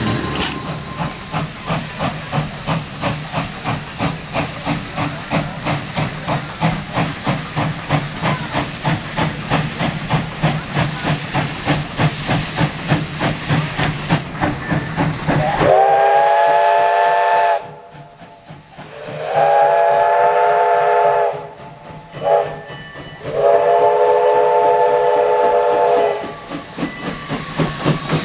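Steam locomotive C.P.R. 2024 working a passenger train, its exhaust chuffing in a steady beat. Then its chime whistle sounds several notes at once in a long, long, short, long pattern: the grade-crossing signal. The chuffing returns near the end.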